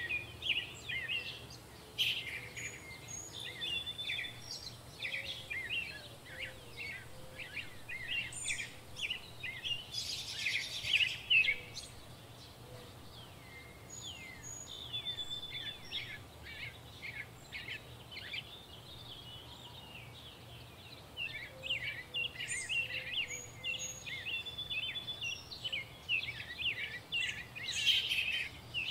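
Small birds chirping, many short rapid calls in bunches with a quieter spell in the middle. A short noisy rush about ten seconds in and another near the end.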